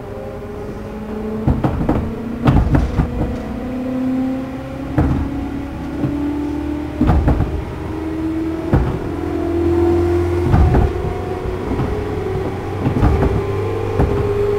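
JR East 211-series electric train's traction motors, on a car refitted with an external cooling fan and known for its unusual sound, whining with a slowly rising pitch as the train accelerates. The wheels clack over rail joints several times along the way.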